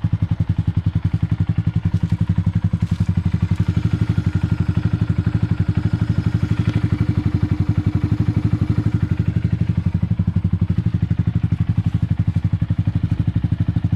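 2023 Honda Grom's 125 cc single-cylinder engine idling steadily, with an even, fast train of exhaust pulses. It is running with a newly fitted ram air intake cover on its airbox.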